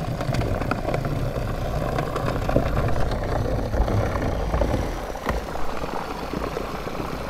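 Boat motor running steadily, a low rumble, as the boat moves toward a hooked fish.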